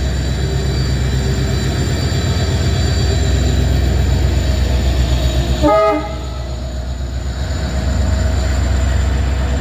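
Diesel locomotive passing close by, its engine running with a steady low drone, and one short blast of the train horn about six seconds in.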